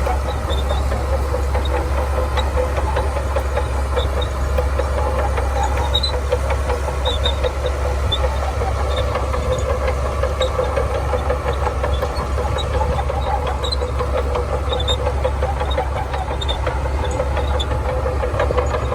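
Shantui bulldozer's diesel engine running steadily, with scattered light metallic clinks.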